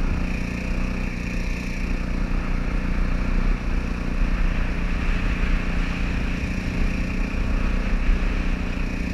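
Small boat motor on a jon boat running steadily at speed as the boat travels along.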